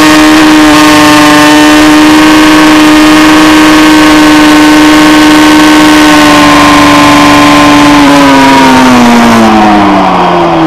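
Suzuki GSX-R sport bike's inline-four engine running hard at a steady high pitch, then falling in pitch from about eight seconds in as the throttle is rolled off, with loud wind rush over the bike.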